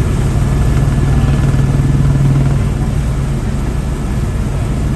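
Tour helicopter in flight heard from inside the cabin: a loud, steady drone of turbine engine and rotor with a strong low hum, swelling slightly and easing off again.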